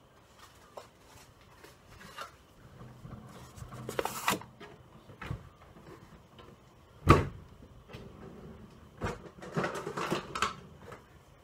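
Meatballs and a plate being handled at a cast-iron skillet: scattered knocks and clatters, the sharpest knock about seven seconds in and a quick run of clatters near the end.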